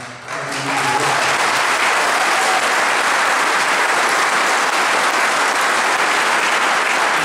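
Audience applauding, swelling up within the first second and then holding steady and loud.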